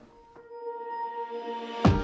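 Electronic background music: a held synth pad swells in, then a sharp hit lands near the end.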